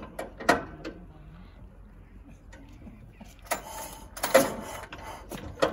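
1913 Leyland S3 bus engine being hand-cranked with its starting handle: sharp clanks and clicks, with a louder rasping clatter about three and a half to four and a half seconds in. The engine does not catch and run.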